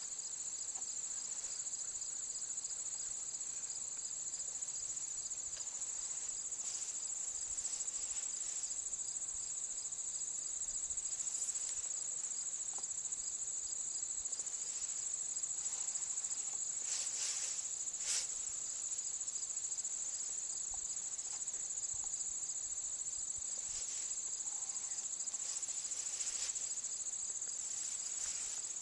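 Steady chorus of singing insects in a grassy field: a continuous high-pitched trill with a fast, even pulse. A few faint brief rustles come through here and there.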